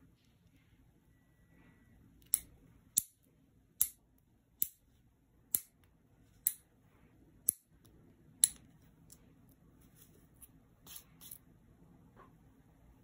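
Metal nail clipper snipping through clear plastic nail-extension tips: eight sharp clicks about a second apart, then a few fainter clicks near the end.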